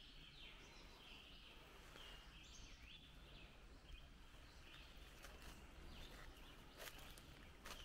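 Faint bird calls: short chirps repeating throughout. A few soft clicks come in the second half.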